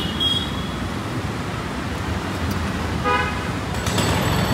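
Busy city street traffic: a steady hum of vehicles, with a vehicle horn sounding briefly about three seconds in.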